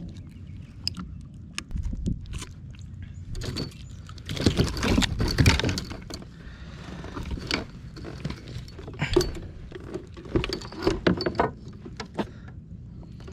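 Handling noise on a plastic fishing kayak: metal jingling and clicks with a run of hard knocks and thuds, loudest about four to six seconds in, then scattered sharp clicks.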